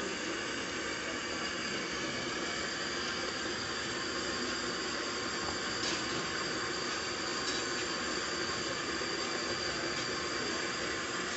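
Pakoras deep-frying in a karahi of hot oil: a steady sizzling hiss, with a couple of faint clicks about halfway through.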